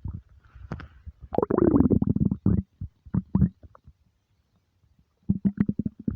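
Empty human stomach rumbling. A deep gurgling growl, dropping in pitch, comes about a second in, followed by a few short gurgles. After a brief lull, a quick run of bubbly pops starts near the end.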